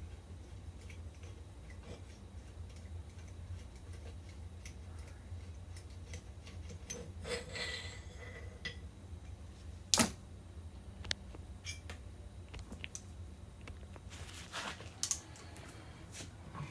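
Hand tools clinking against metal as transmission bolts are worked loose: scattered light clicks and taps, with one sharp clack about ten seconds in, over a steady low hum.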